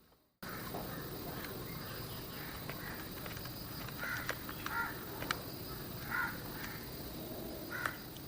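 Crows cawing repeatedly, several calls in the second half, over a steady outdoor background, with a few sharp clicks. The sound starts suddenly just under half a second in.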